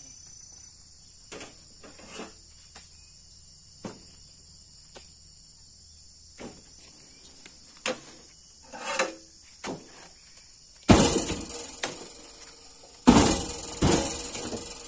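Steady insect chirring, with scattered light knocks and then three loud, heavy thuds near the end, each trailing off over about a second: oil palm fresh fruit bunches being thrown down as they are collected.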